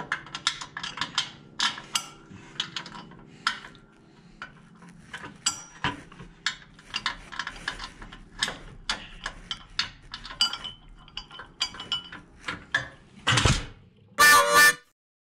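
Wrench and stainless steel nuts clinking and clicking against the exhaust studs and chrome pipe as the nuts are worked on under the motorcycle, in many sharp, irregular metal taps. Two louder short bursts come near the end, and then the sound cuts off suddenly.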